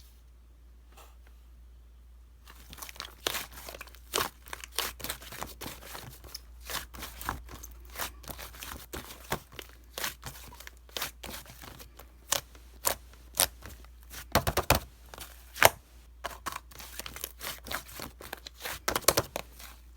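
Crinkling and tearing crackles in quick, irregular succession, starting about two and a half seconds in, with a louder cluster of sharp crackles a little past the middle.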